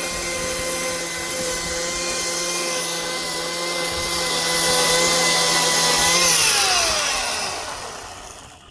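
Power tool running steadily at a constant pitch. About six seconds in it is switched off and winds down, its pitch falling as it fades.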